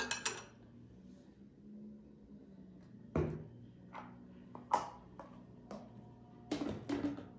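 Light clicks and knocks of small kitchen containers being handled on a countertop, several short ones spread over the second half.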